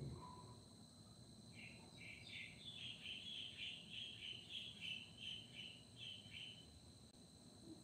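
Faint bird calling: a run of about a dozen short chirps, two to three a second, starting about a second and a half in and stopping near the end, over a steady high-pitched tone.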